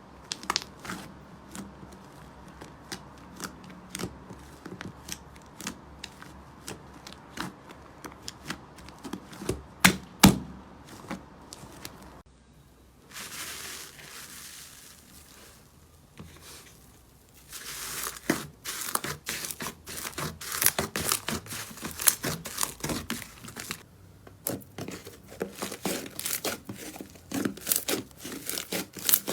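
Slime being pressed and worked by hand, making small sticky pops and crackles. The pops are sparse in the first half, a soft hiss comes about halfway through, and then rapid, dense crackling follows.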